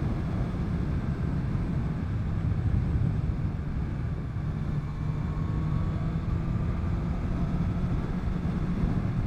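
Honda CB1000R's inline-four engine pulling at a steady cruise, heard from the rider's helmet camera over the rush of wind noise.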